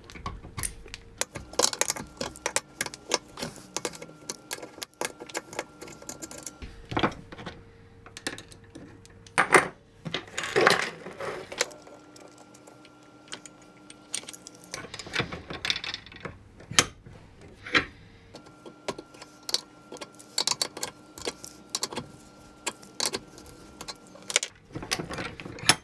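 Steel hand tools clinking and knocking against a metal needle nozzle clamped in a bench vise as it is worked loose with a spanner and pliers: many sharp metallic clicks and clatters, some louder knocks, over a faint steady hum.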